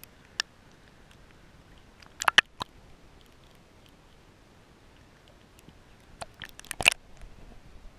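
Sea water splashing and slapping against a waterproof camera housing held at the surface. There is one sharp splash about half a second in, a quick cluster around two and a half seconds, and another cluster near the end, over a faint muffled hiss.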